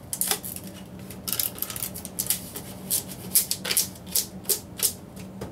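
A rolled paper poster being handled while a rubber band is worked back around it: irregular short rustles and crackles of stiff paper.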